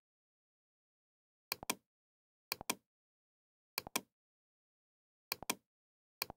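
Computer mouse clicks, five in all, each a quick press-and-release pair of sharp clicks, spaced about a second or a second and a half apart, with dead silence between.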